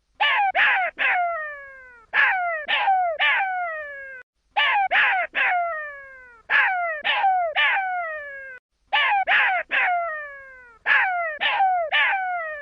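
Jackal pup calling: high cries that each slide down in pitch, given in bursts of three, about one burst every two seconds.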